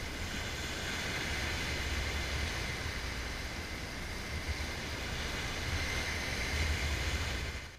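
Small waves washing onto a sandy beach, a steady hiss of surf, with gusty wind rumbling on the microphone.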